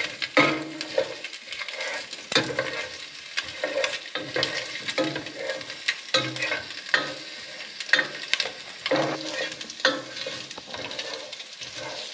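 Pork pieces sizzling in hot oil in a pot as they brown, while a spoon stirs them, with frequent clicks and scrapes against the pot.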